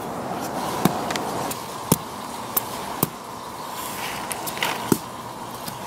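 Small stainless knife (Mora Eldris) knocking and scraping against weathered wood: several sharp knocks at irregular intervals with short scratchy scrapes between them.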